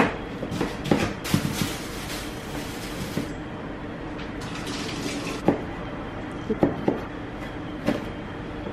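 Kitchen tap running into a steel sink, with sharp knife knocks on a plastic cutting board now and then as onion and jalapeños are trimmed and cut.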